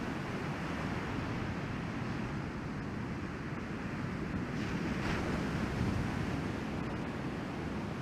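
Ocean surf breaking and washing up a beach: a steady rush of waves, with wind on the microphone. A brighter surge of whitewash comes about four and a half seconds in.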